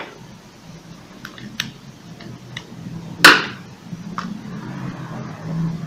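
Small metallic clicks and taps as a screwdriver seats and tightens the screw holding an electric hair clipper's blade, with one sharp loud knock a little past three seconds in. A faint low hum runs underneath, growing stronger in the second half.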